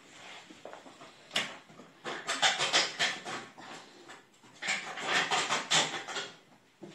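Hands rustling and scraping an oven's thermostat sensor and its insulation while working the sensor out of a tight spot, in irregular bursts with a sharp click about a second and a half in.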